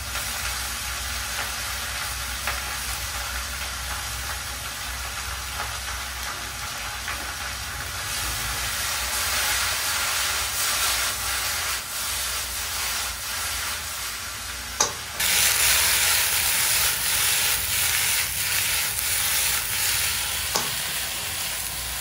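Shredded potato and radish frying in oil in a wok, with a steady sizzle and the light scrape of stirring. Just before fifteen seconds in there is a sharp knock, and the sizzle turns suddenly louder and hissier.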